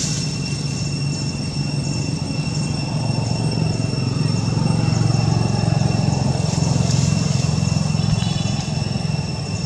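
A motor vehicle's engine humming, growing louder about a third of the way in and easing off near the end, with a steady high-pitched whine throughout.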